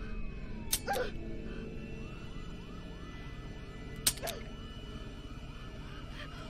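Police sirens wailing: one slides slowly up and down while another repeats a fast yelp of about three rises a second. Sharp cracks cut through about a second in and again a little after four seconds.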